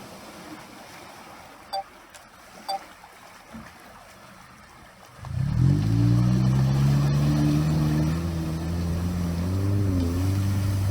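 An off-road vehicle's engine drops away, then after a quiet stretch with two short high chirps it surges up about five seconds in and keeps running steadily.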